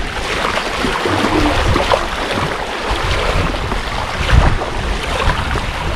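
Choppy waves splashing and slapping against a sailing canoe's hull, with wind buffeting the microphone; one louder thump about four and a half seconds in.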